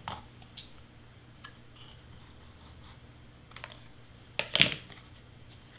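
Scissors snipping cardstock: a few faint clicks, then a louder short snip near the end.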